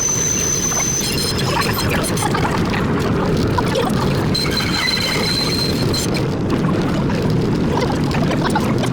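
A 100-year-old Lo-V subway car running on the track: a steady rumble of wheels on rail, with a high wheel squeal that ends about a second in and another squeal lasting about a second and a half near the middle.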